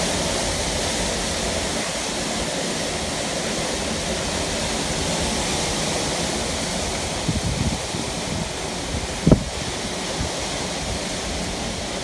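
Strong storm wind rushing through trees, heard as a steady noise. A few low knocks come about seven seconds in, and one short, sharp thump a little after nine seconds.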